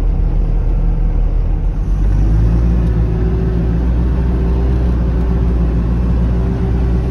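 Mercedes-Benz Vario 818 expedition truck's diesel engine running steadily while driving over desert sand. About two seconds in its note shifts and the low drone grows stronger.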